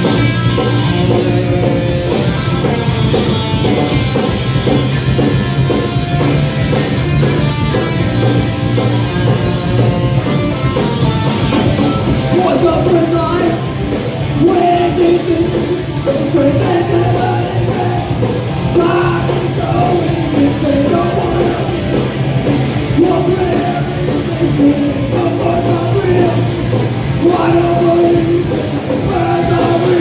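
Live punk rock band playing loudly: distorted electric guitars over a drum kit, with a singer coming in partway through.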